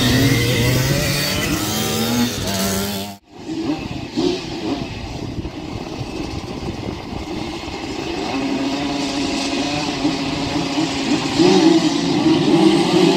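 Several two-stroke Simson moped racing engines: bikes ride past on the dirt track, then, after a sudden cut about three seconds in, a grid of them runs together at the start line, revving louder and higher near the end.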